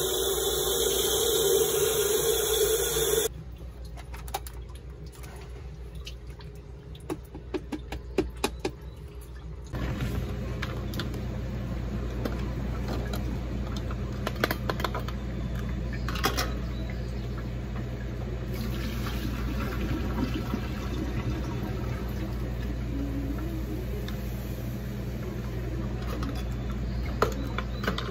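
Tap water pours into a glass electric kettle, filling it, for about the first three seconds and then stops. Scattered clicks and knocks follow. From about ten seconds in, a steady low hum runs with occasional clicks of handling.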